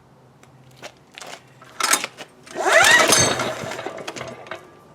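Recoil pull-starter on an ETQ DG7250LE's single-cylinder diesel engine. A few sharp clacks from the starter handle and lever come first, then one hard pull: a whirring that rises in pitch as the engine turns over and dies away without catching.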